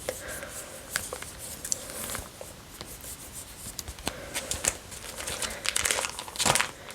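Plastic sleeves of a trading-card binder crinkling and rustling as pages are handled and turned, with scattered clicks and a louder rustle near the end.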